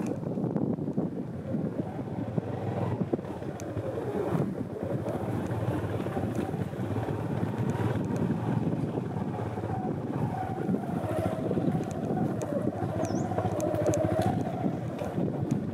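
Wind buffeting the microphone in a steady low rumble, with a faint wavering tone underneath.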